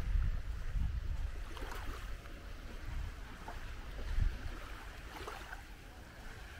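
Wind rumbling on the microphone, with waves washing ashore.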